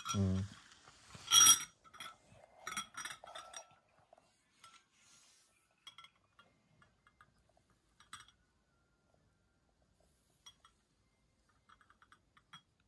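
Metal spoon clinking against a glass bowl. One loud clink comes about a second and a half in, then several lighter clinks over the next two seconds, then only faint scattered taps.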